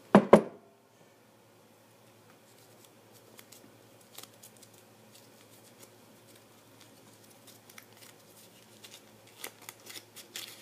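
Two sharp clatters a fraction of a second apart from the drawing container being handled, then faint scattered ticks and rustling as a slip is drawn, busier near the end.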